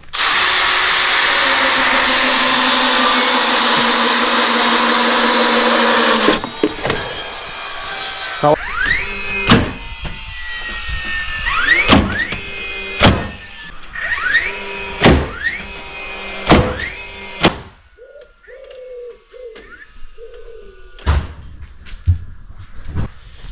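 A power tool runs steadily for about six seconds, then a hammer strikes timber about once a second, roughly eight blows, nailing on the roof framing.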